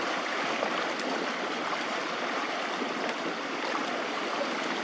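Floodwater rushing steadily down a creek, a continuous even hiss of running water.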